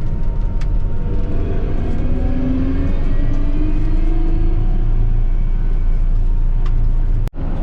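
Vehicle engine running while driving: a steady low rumble with a faint whine that drifts up and down in pitch. The sound cuts out briefly near the end.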